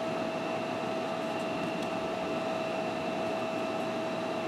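Steady fan-like hum and hiss with a constant mid-pitched whine and a fainter higher tone. A few faint light ticks come from cards being handled.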